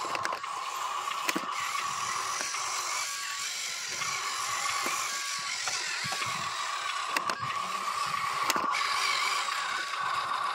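Radio-controlled Huina dump truck's electric motor and gearbox whining steadily as it drives up a dirt slope, with three sharp clicks.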